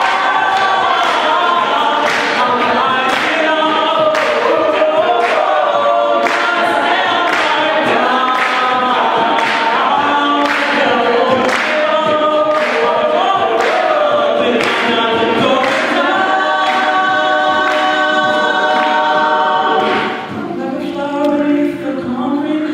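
Mixed-voice a cappella group singing: a male lead over backing vocal harmonies, driven by a steady vocal-percussion beat. Near the end the group drops back to softer sustained chords.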